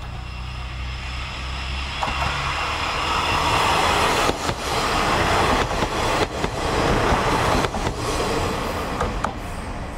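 Ex-JNR KiHa 30-type diesel railcars passing at close range: the diesel engine's hum as the train comes up, then loud wheel rumble with a series of clacks over the rail joints as the cars go by, fading as the train moves away.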